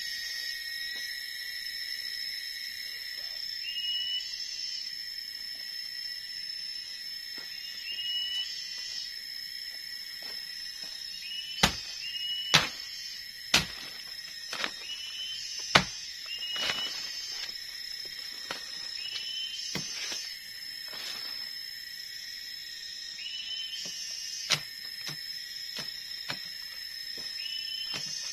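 Tropical forest insects drone steadily at two high pitches, with a short rising chirp repeating every few seconds. Partway through, a machete strikes wood four times within about four seconds, with one more strike near the end.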